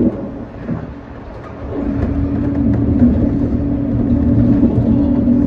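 Shonan Monorail 5600-series suspended monorail car running, heard from the cab: a low rumble with a steady motor hum. The sound dips quieter in the first second or so and builds back up about two seconds in.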